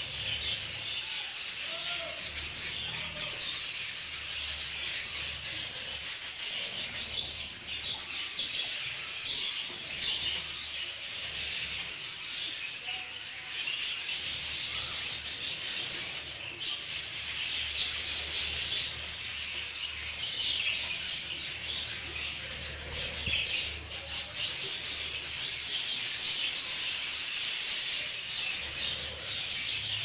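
A flock of budgerigars chattering steadily while feeding, a dense high twittering without pause.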